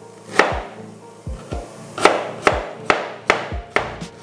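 Chef's knife chopping onion on a plastic cutting board: sharp knocks of the blade striking the board. A few are spaced out, then from about halfway they come in a steady run of about two and a half a second.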